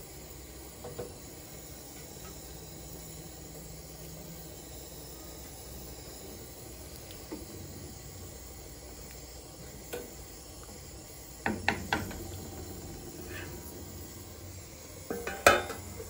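A pan of curry simmering on a gas burner with a steady hiss, a spatula knocking a few times against the pan about three quarters of the way in, and a steel lid clanking down onto the pan near the end.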